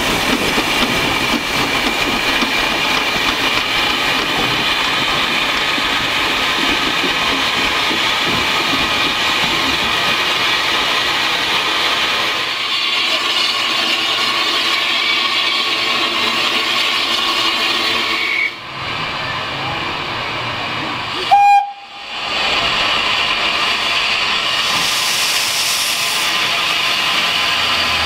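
Steam locomotives letting off a steady hiss of steam, with one short, loud whistle toot about two-thirds of the way through and a brighter burst of steam hiss soon after.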